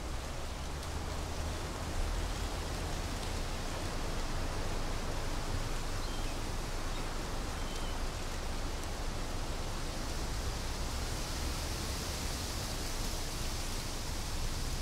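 A steady wash of noise like rain or rushing water, with a low rumble underneath and the hiss growing brighter in the last few seconds: an edited field recording with no added instruments, played back over the cinema's speakers.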